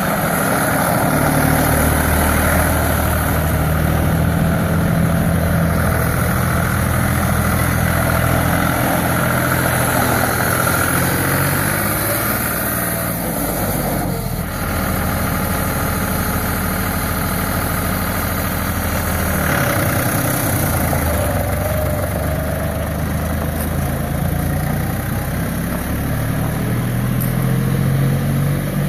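John Deere 5310 tractor's three-cylinder diesel engine running steadily at low revs while the tractor is driven around, its pitch shifting slightly in the second half.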